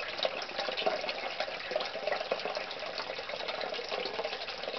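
Water gushing and splashing steadily as a basement sump pump pumps out its pit, which is filling every few seconds with water from days of heavy rain.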